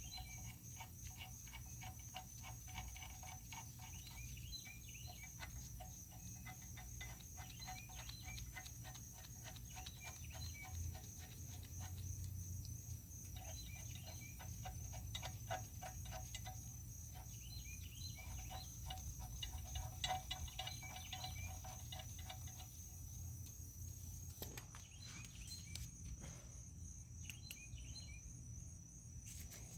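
Faint insects chirping steadily: a continuous high pulsing trill with clusters of quick repeated chirps over a low hum.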